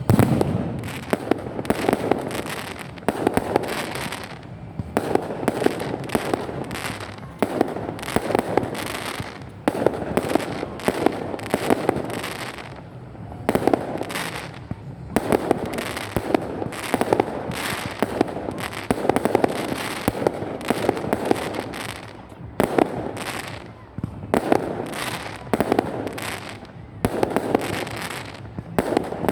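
Fireworks going off in dense crackling barrages: rapid cracks and pops come in surges about every one to two seconds, with no pause.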